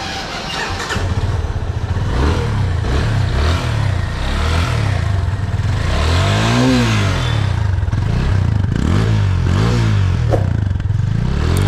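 Yamaha FZ25's single-cylinder engine starting about a second in, then idling with several quick throttle blips, the revs rising and falling each time. It has just been fitted with a new paper air filter.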